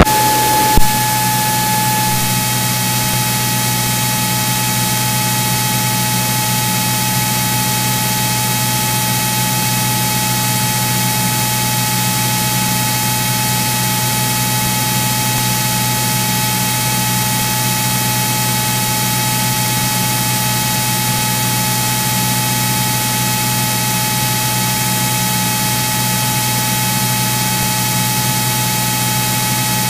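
Steady hiss and hum of a Cirrus SR22's cockpit audio in flight, the six-cylinder engine's drone beneath it, with a single click about a second in.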